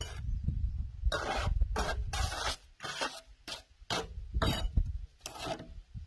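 Bricklayer's trowel scraping over ceramic hollow bricks and mortar while laying a course: about nine short scrapes, over a steady low rumble.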